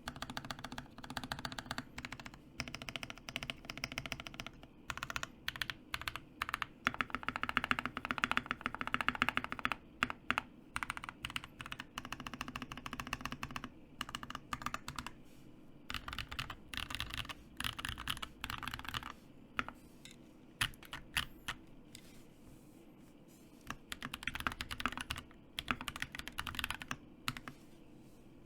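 Typing on a Keydous NJ68 mechanical keyboard with Kinetic Labs Salmon switches and stock doubleshot ABS keycaps: fast runs of keystrokes in bursts, broken by short pauses.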